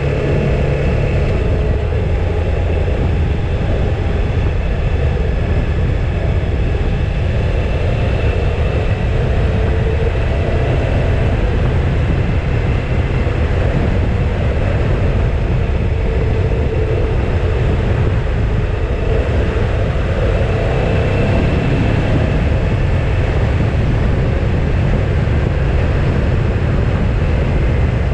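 Motorcycle running at a steady cruising speed on the highway: a constant low engine drone under heavy wind rushing over the bike-mounted microphone.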